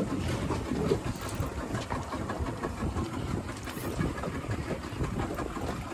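Small fishing boat's outboard motor running steadily at low trolling speed.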